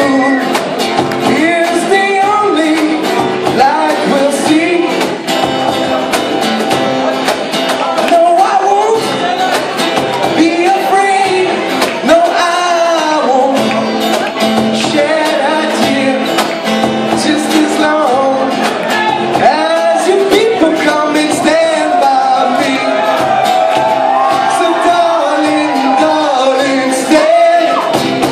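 A band playing live with singing over it, loud and continuous, with little bass.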